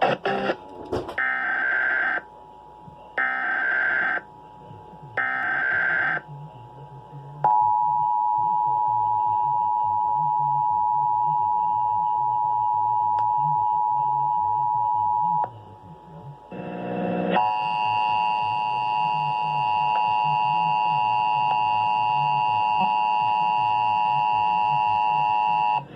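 Emergency Alert System test relayed over a TV broadcast. Three short digital data bursts of the SAME header come first, then the steady two-tone attention signal, held for about eight seconds. After a brief break, a second, harsher tone with several pitches sets in and holds.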